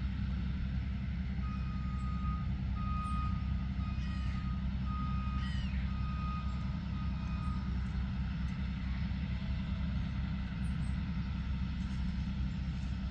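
Farm vehicle's reversing alarm sounding about seven steady, evenly spaced beeps, starting a second or so in and stopping about six seconds later, over a constant low rumble of machinery.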